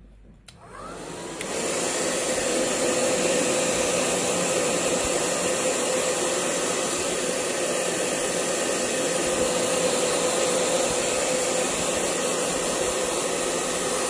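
Handheld hair dryer switched on about half a second in, spinning up over about a second, then blowing steadily: a rush of air with a steady hum underneath, drying a wet ink-and-colour wash on paper.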